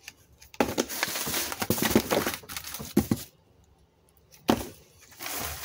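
Plastic trash bags and plastic-wrapped packages rustling and crinkling as they are handled, with a short knock about four and a half seconds in.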